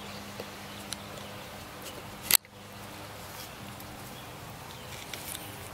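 Quiet outdoor background with a faint steady low hum and scattered light ticks, broken by one sharp click a little over two seconds in.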